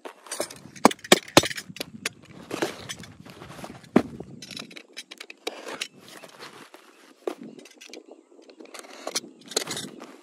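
Irregular sharp clicks and knocks with rustling: a die-cast toy tractor model and its packaging being handled during unboxing, the loudest clicks about a second in.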